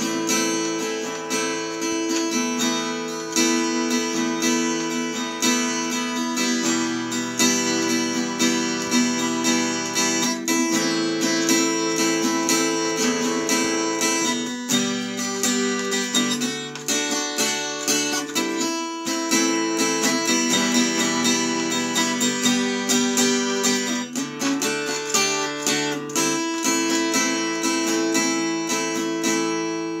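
Acoustic guitar played solo, a steady run of picked and strummed chords that change every few seconds.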